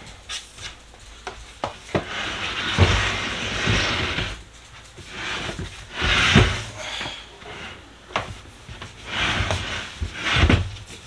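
IKEA Alex five-drawer unit being pushed and shoved across the floor: scraping and rubbing in three or so stretches, with knocks and thuds in between.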